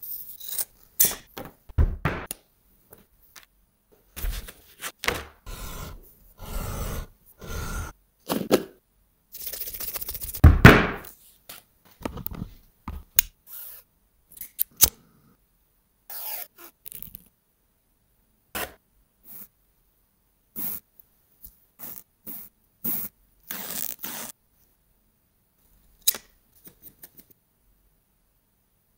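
Leatherworking handling sounds: scissors snipping through leather, leather scraping and rubbing as pieces are handled, and thread drawn through stitching holes. A string of separate short scrapes, snips and taps with gaps between, growing sparser near the end.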